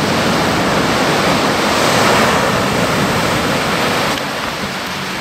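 Surf breaking and washing around in shallow water, swelling to a peak about two seconds in.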